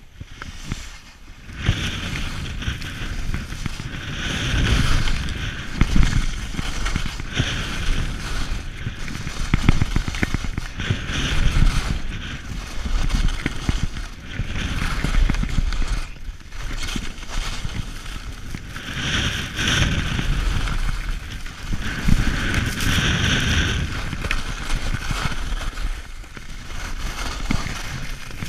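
Skis scraping and carving over hard-packed snow on a fast descent, the scrape swelling with each turn every few seconds, over wind rumbling on the microphone.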